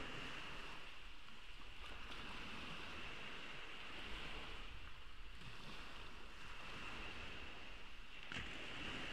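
Small ocean waves washing up and draining back on a sandy beach, a steady wash with one louder wave breaking about eight seconds in.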